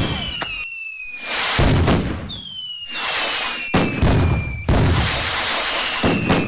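Fireworks: three high whistles, each falling steadily in pitch, with several loud bangs in between, the biggest about one and a half seconds in.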